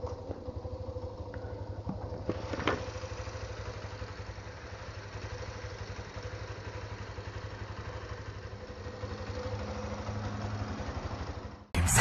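Petrol engine of a two-wheeler running at a steady idle, an even low pulsing with a faint hum, and one short click about two and a half seconds in.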